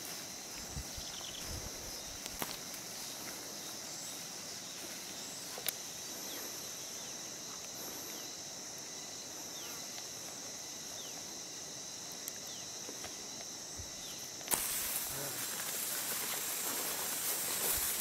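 Steady high-pitched drone of insects, with a few faint short descending calls over it. About fourteen seconds in, a louder rustling hiss of tall grass being brushed through by someone walking takes over.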